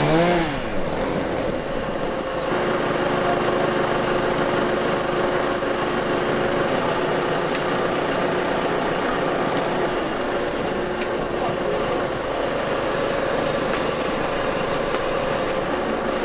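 Engine running steadily after a brief rev-up at the start.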